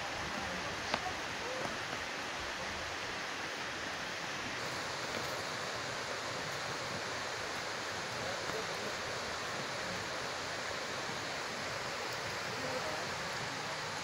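Steady rush of a waterfall and its stream, an even hiss with no let-up, with one sharp click about a second in.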